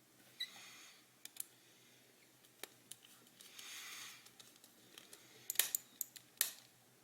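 Small plastic parts of a computer mouse being handled and fitted together during reassembly: scattered light clicks and short rustles, with a cluster of louder clicks near the end.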